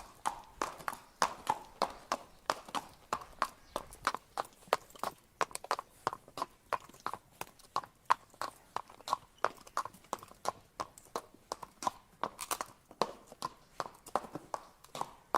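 Hooves of a walking horse striking the ground in a steady walking rhythm, about three sharp hoofbeats a second.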